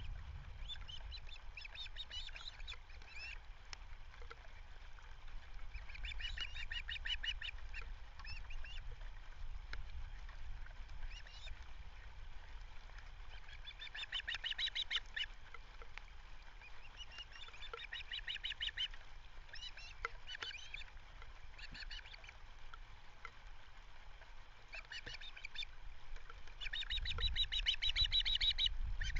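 Osprey calling: repeated bursts of rapid, high whistled chirps every few seconds, the loudest burst near the end, over a low wind rumble on the microphone.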